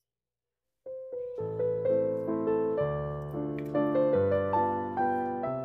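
Piano music starting about a second in after silence, a melody over held chords with each note struck and fading.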